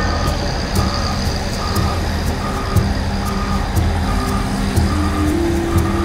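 Heavy diesel engine of construction machinery running, with a motion warning alarm beeping at an even pace, about once every 0.8 seconds. A second steady engine note joins about five seconds in.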